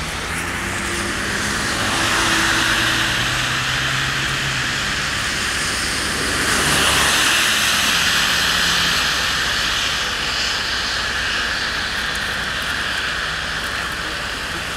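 Steady rushing vehicle noise, swelling about two seconds in and louder again around seven seconds.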